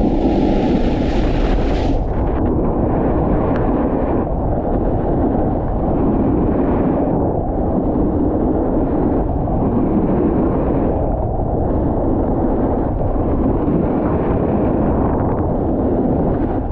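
Wind buffeting the camera's microphone as a snowboard runs fast down groomed snow, with the board scraping the surface; the rumble swells and eases every second or two. A brighter hissing scrape of snow sounds in the first two seconds.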